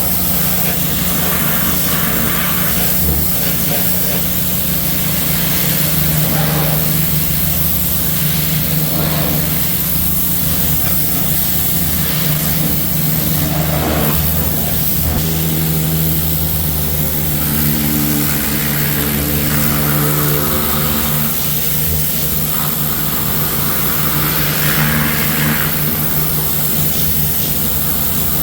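A small engine running steadily under a constant loud hiss of spray, as from a gas-engine pressure washer at work.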